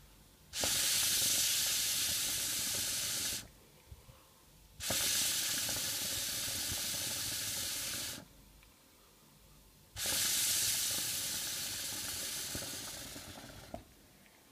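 Hookah being smoked in: three long draws of about three seconds each, air hissing through the coal-topped bowl, with short pauses between them. The last draw fades gradually.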